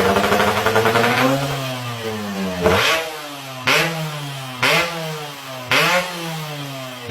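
An engine revved in short throttle blips about once a second, its pitch jumping up at each blip and sinking back between them.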